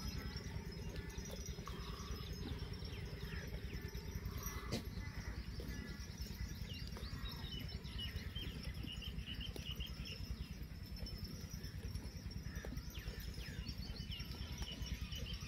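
Small birds chirping and trilling over a steady low rumble, with one sharp click about five seconds in.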